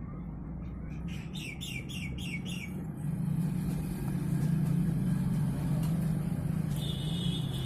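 Steady low background hum. A little over a second in comes a quick run of about six short, high chirps, and a steady high whine enters near the end.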